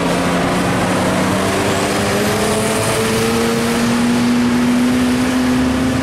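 Large bus passing close with its diesel engine running under a heavy rush of road and engine noise, the engine note rising slowly and steadily as it accelerates. No horn sounds.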